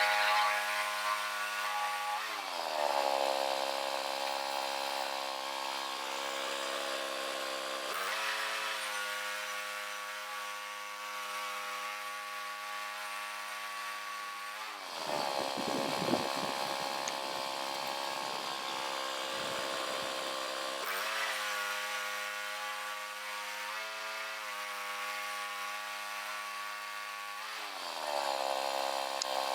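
Chainsaw engine running steadily under load while milling a log into lumber. Its pitch drops several times as the cut loads it, with a rougher, rasping stretch about halfway through.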